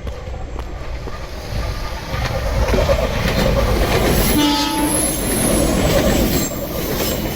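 Meitetsu electric train running past with a building rumble of wheels on rail. A brief horn toot sounds about halfway through.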